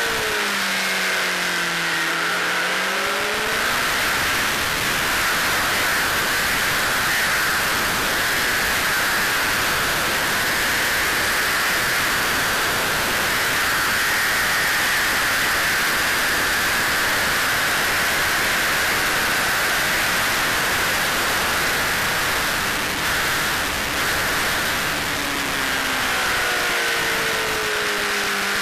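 Honda CBR600RR inline-four motorcycle at speed on track, its engine note buried under heavy wind rush over the microphone. The engine pitch drops and climbs again in the first few seconds, stays hidden in a steady rush through the middle, and drops again near the end as the bike comes off the throttle.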